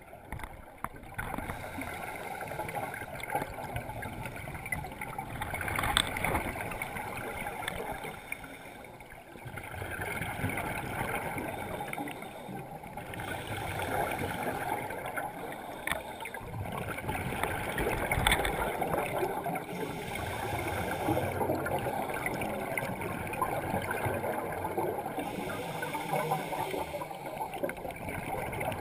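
Scuba divers' exhaled bubbles gurgling and rushing, heard underwater through a camera housing, swelling and fading every few seconds, with a few sharp clicks.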